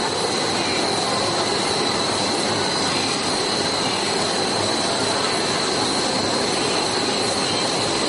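Steady machine drone of gym equipment, with a constant high-pitched whine over a hiss.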